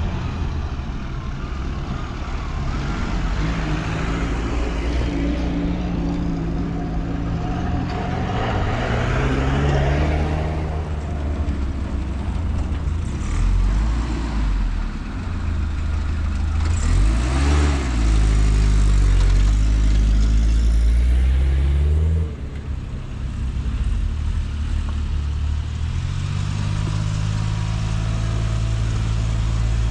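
Engine running and changing speed, its pitch rising and falling several times; it is loudest a little past halfway, then drops suddenly and settles to a steadier run.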